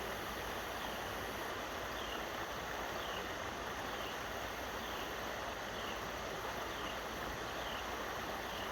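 Steady rush of river water flowing below a dam, with a faint high chirp repeating about once a second.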